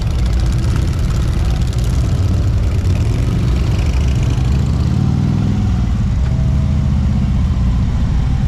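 Several Harley-Davidson V-twin touring motorcycles idling and pulling away as a group, a deep steady engine rumble. About five seconds in, one engine revs up and back down.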